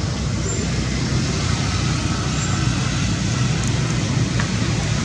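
Steady outdoor background noise: a low rumble under an even hiss, with two faint short high chirps in the first half.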